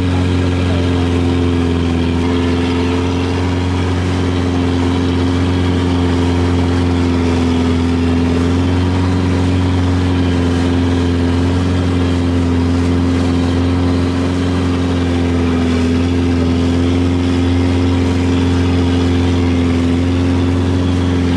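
Boat engine running steadily at an even pitch while the boat is underway, heard from on board.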